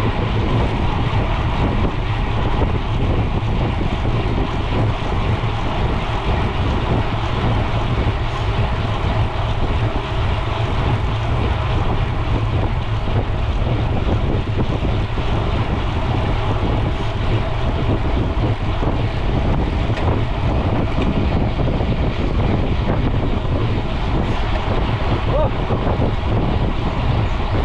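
Steady wind noise on an action camera's microphone while riding a mountain bike on the road, with tyre and road rumble beneath; a continuous rush, heaviest in the low end.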